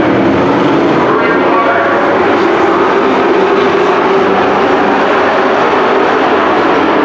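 Several dirt-track race trucks running hard around the oval, their engines blending into a steady, loud drone as the pack goes by.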